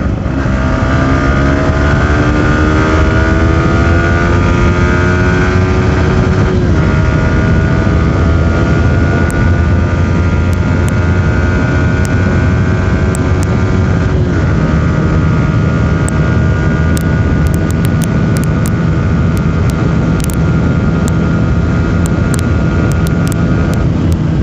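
Yamaha R15 V3's 155 cc single-cylinder engine under hard acceleration: the revs climb, drop briefly at an upshift, climb again, drop at a second upshift, then hold steady at high revs.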